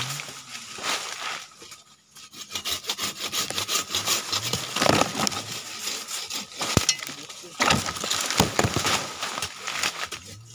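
Hand pruning saw cutting through a cashew tree branch in quick rasping back-and-forth strokes. The strokes pause for about a second near the start, then resume.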